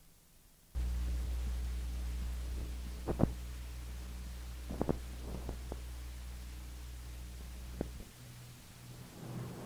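Steady low electrical hum from the recording chain, switching on abruptly about a second in and dropping away near the end, with a few faint clicks along the way, as on a tape resuming between sections of a recorded talk.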